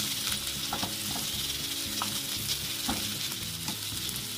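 Sliced onions and fried okra sizzling in hot oil in a non-stick frying pan while a spatula stirs them: a steady sizzle with a few short scrapes of the spatula against the pan. The onions are being softened, not browned.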